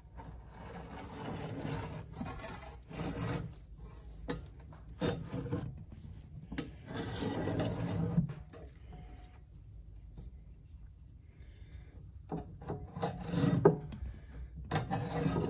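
Chisel scraping across the charred wood of a whiskey barrel head along a steel straightedge, scoring a line in a run of rasping strokes, with a lull of a few seconds in the middle and a few sharp clicks near the end.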